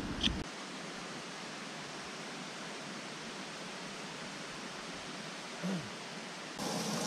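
Steady, even rush of flowing creek water.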